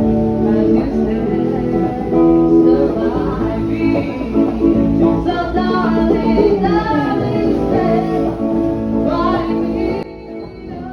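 Background music: a song with plucked guitar and a singing voice, cutting off suddenly about ten seconds in.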